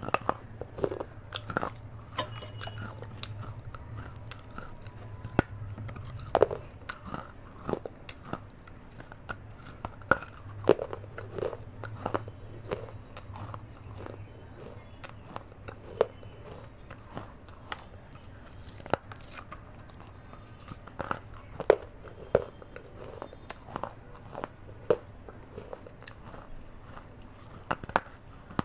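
Close-miked biting and chewing of shards of a fired clay pot (matka): sharp, irregular crunches and snaps, a few every second, between softer grinding chews.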